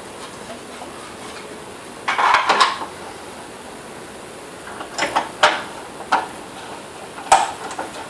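Plastic bolt cover on a Gold's Gym 290C exercise bike's handlebar post clicking and cracking in short bursts while a screw is worked into it by hand and screwdriver. The bursts come about two seconds in, twice around five to six seconds, and again near the end. The plastic is popping and cracking as the screw goes in.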